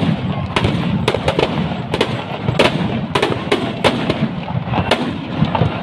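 Firecrackers inside a burning Ravana effigy going off in a rapid, irregular string of sharp bangs, two or three a second, over a steady background noise.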